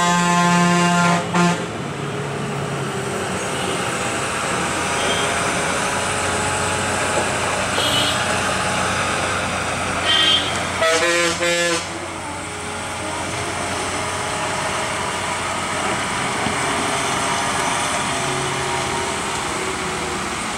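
Heavy loaded lorry's engine running steadily at low speed, with a vehicle horn sounding for about a second and a half at the start and a second horn, with a pulsing tone, about eleven seconds in.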